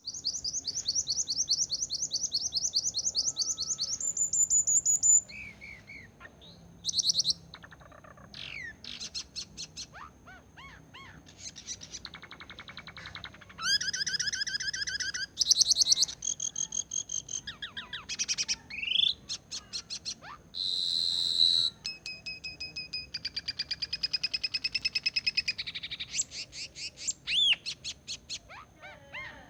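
A songbird, called cak kelleng locally, singing a long, varied song: bursts of rapid high trills and rattles alternating with clear whistled notes and slurred phrases, each lasting one to two seconds with short pauses between.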